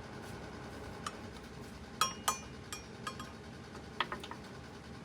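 Metal hand tools clinking together: about seven sharp clinks with a brief ring, the loudest two about two seconds in and more near three and four seconds.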